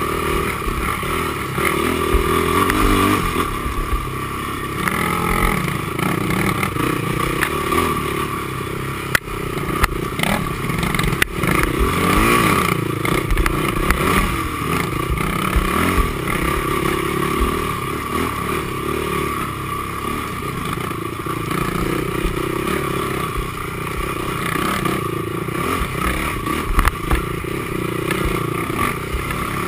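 Honda TRX450R quad's single-cylinder four-stroke engine running under load, its revs rising and falling as it is ridden along a trail, with a few sharp knocks along the way.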